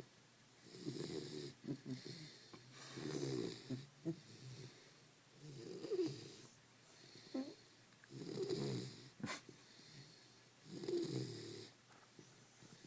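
A sleeping pet snoring loudly, five snores about two and a half seconds apart. A short sharp click falls about nine seconds in.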